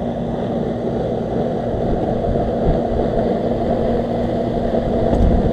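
Residential air-conditioning condensing unit running: a steady rush from the condenser fan over a constant low electrical hum from the compressor.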